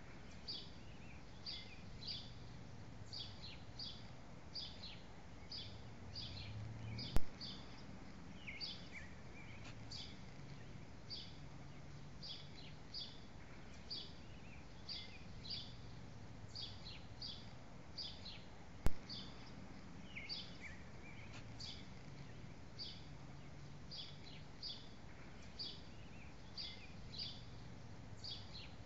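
A small bird chirping over and over, about two short high chirps a second, over faint low background hum. Two sharp clicks, about 7 and 19 seconds in, are the loudest sounds.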